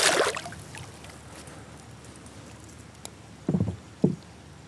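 A released smallmouth bass splashing away at the surface beside the kayak: a loud splash at the start that dies away within about half a second. Two short, dull knocks follow near the end.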